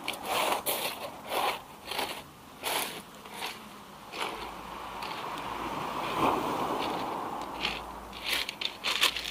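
Rounded beach pebbles clattering and clicking against each other as the surf washes back and forth over them. A wave's wash swells in the middle, then the stones clatter again near the end.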